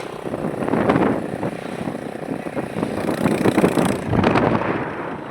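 Motorcycle riding along the road, its engine noise mixed with wind buffeting the microphone.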